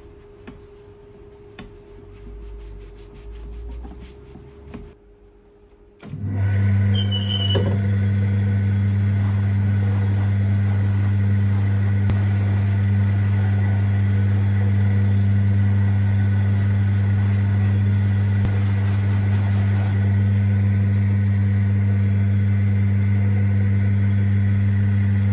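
Fine sandpaper rubbing quietly around a boot's sole edge. About six seconds in, a cobbler's finishing machine starts and runs steadily with a loud low hum as the leather sole edge is buffed on its spinning wheels to a smooth finish.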